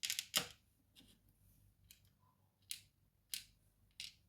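Small metallic clicks and taps of padlock pins being handled over a pinning tray: a quick cluster at the start, then three single light ticks spaced less than a second apart in the second half.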